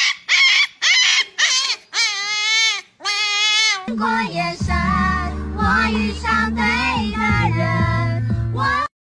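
Husky puppy yelping in about five quick high-pitched yaps, then giving two longer wavering howls. About four seconds in, music with a steady bass line and a high, wavering singing voice takes over, and it cuts off abruptly near the end.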